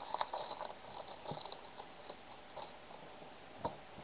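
Crinkling and crackling of a trading-card pack's wrapper being torn open and handled, busiest in the first second, with scattered crackles after and one sharper tap near the end.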